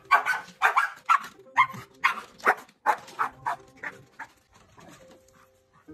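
Excited dog giving a rapid run of short barks and yips, two to three a second, fading away after about four seconds.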